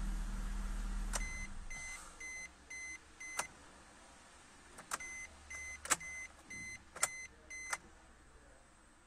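Suzuki Swift engine idling, then shut off about a second in. A dashboard warning chime follows, beeping about two and a half times a second in two runs, with sharp clicks from the ignition being switched, the loudest near the end.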